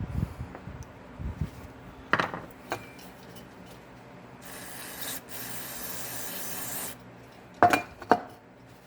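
Metal brake parts knocking and clinking a few times, and a spray hissing steadily for about two and a half seconds in the middle while the brake cylinder is cleaned. The loudest clinks come as a pair near the end.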